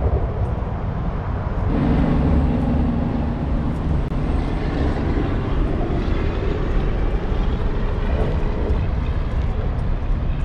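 Road traffic on the bridge overhead, heard from underneath as a loud, steady rumble. A deeper drone swells for a couple of seconds about two seconds in, as a heavier vehicle crosses.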